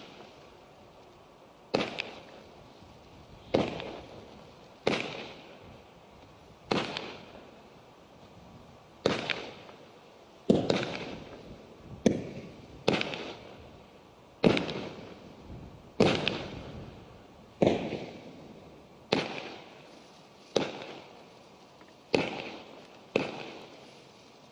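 Lower-noise 25 mm consumer firework cake firing its tubes one after another, about sixteen shots at roughly one to two second intervals. Each shot is a sharp launch thump followed by a fading hiss of its comet and glitter tail.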